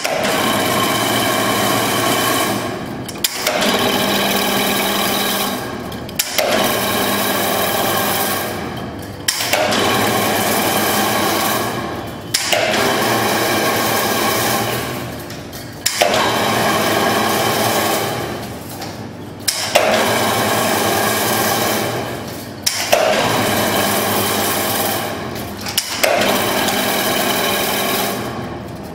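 Semi-automatic chain-link fence weaving machine running in repeating cycles of about three seconds. Each cycle is a steady mechanical whir with a humming tone that dies away, followed by a sharp click as the next cycle starts.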